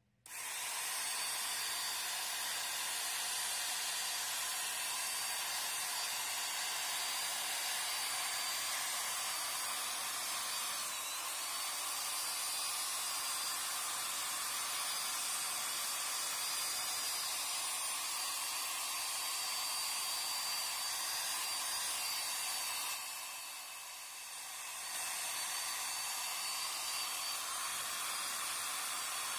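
Electric drill spinning a buffing pad against a plastic headlight lens: a steady hiss with a thin high motor whine. It eases off for about two seconds late on, then picks up again.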